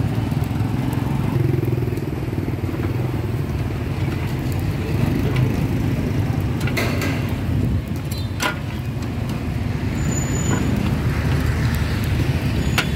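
Steady street traffic noise from passing motorbikes and cars, with a few sharp clicks about seven seconds in, at eight and a half seconds, and near the end.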